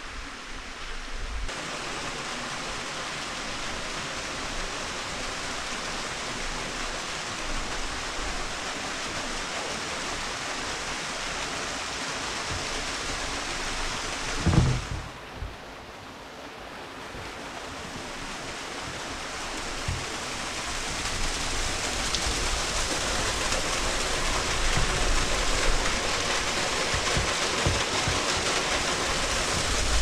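Rushing mountain water, a steady hiss of falling water. A single loud knock comes about halfway through; the rush then drops away for a moment and grows gradually louder again towards the end.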